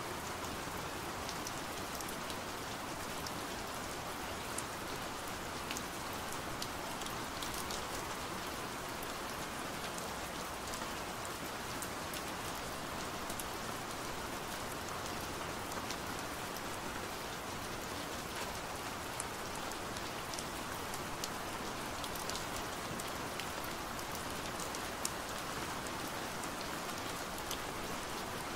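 Steady rain on a window pane: an even hiss of falling rain with many small, sharp ticks of single drops striking the glass.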